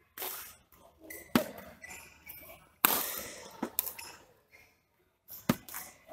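Badminton doubles rally: about four sharp racket strikes on the shuttlecock, irregularly spaced, the loudest about three seconds in, with faint voices between.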